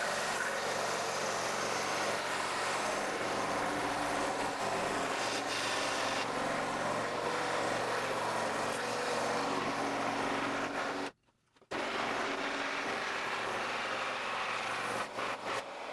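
Ryobi scroll saw running, its reciprocating blade cutting through plastic-laminate-faced MDF with a steady motor hum and sawing noise. The sound drops out for about half a second around eleven seconds in, then resumes.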